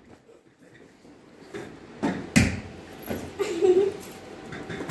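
A ball bouncing on a tiled floor: a few sharp thuds, the loudest about two and a half seconds in.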